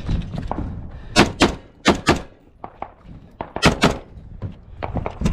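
Three quick pairs of gunshots, each pair about a quarter second apart, with fainter shots or knocks between them.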